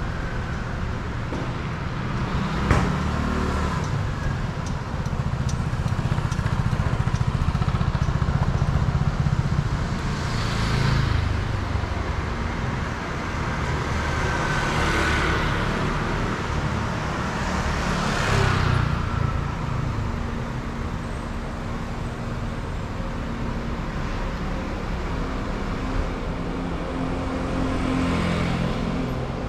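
Street traffic: a steady low rumble of engines, with vehicles passing close by several times, the loudest about halfway through.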